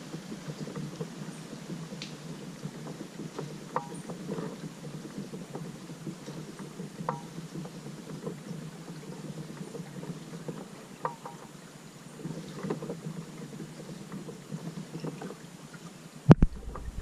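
Water swishing and lapping around a kayak as it is paddled, with occasional light knocks. Near the end, two loud thumps.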